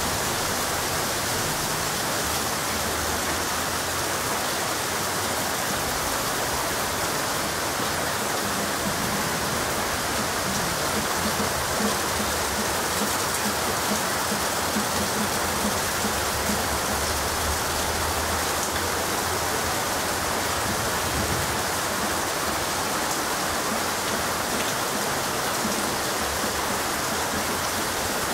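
Heavy monsoon rain pouring steadily on trees and roofs, a dense, even hiss that stays at the same loudness throughout.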